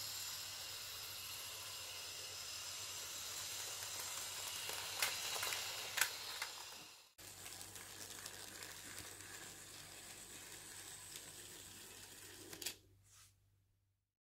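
Hornby OO gauge model locomotive, tender-driven, running on its track: a steady high hiss from wheels and motor, with two sharp clicks about five and six seconds in. It cuts off about seven seconds in and gives way to a fainter hiss with a steady low hum as another model engine runs along the track, ending in a click and a fade-out.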